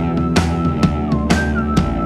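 Background music with a steady beat of about two strokes a second under a held high note that slides down briefly once or twice.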